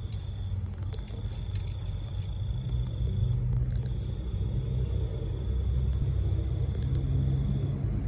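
Steady low mechanical hum of a machine running nearby, with a thin high steady tone that cuts out and comes back a few times.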